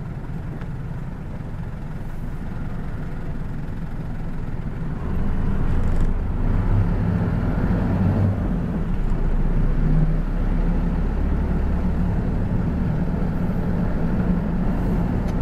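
City bus engine and road noise heard from inside the passenger cabin. The engine grows louder about five seconds in as the bus pulls away and picks up speed, then runs steadily.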